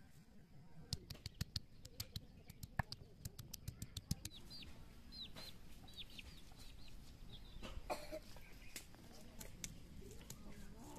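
Stone roller knocking and crushing garlic cloves on a flat grinding stone (sil-batta), a run of sharp irregular clicks that pauses mid-way and starts again near the end. A few short, high, falling bird chirps sound around the middle.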